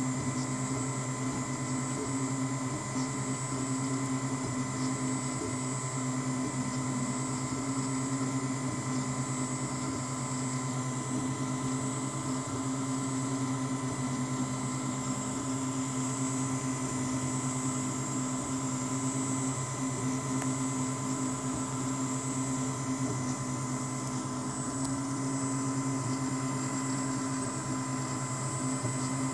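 UP Mini 2 3D printer running while laying down the raft for a print: a steady mechanical hum with several steady whining tones.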